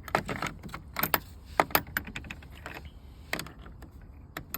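Spark plugs being handled and set down: an irregular run of sharp clicks and light taps, the loudest about one and a half seconds in.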